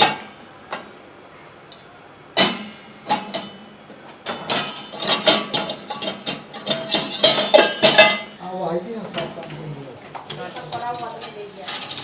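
Stainless steel pots, lids and utensils clanking and clinking against one another and the wire racks as they are loaded into an IFB Neptune VX dishwasher. There is a loud clank a couple of seconds in, then a busy run of clinks that lasts a few seconds.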